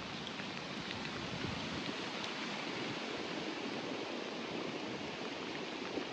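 Steady rain falling, a constant even hiss with a faint patter of drops.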